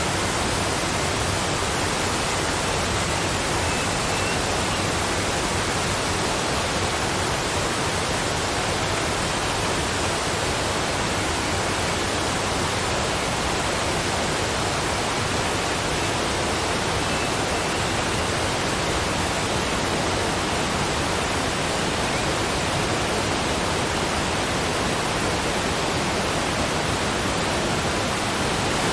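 Waterfall: water pouring and splashing in a steady, even rush with no breaks or changes.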